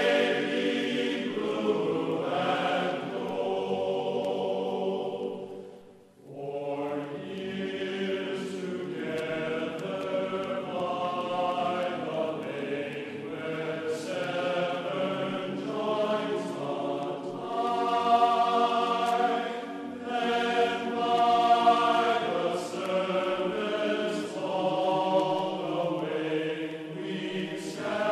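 Background music of long, held chant-like vocal notes that shift slowly in pitch, fading out briefly about six seconds in before resuming.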